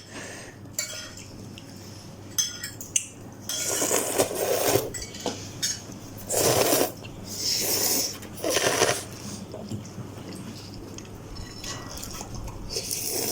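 Spoon and fork clinking against a bowl of instant noodles while eating, with scattered light clinks and three longer noisy bursts in the middle.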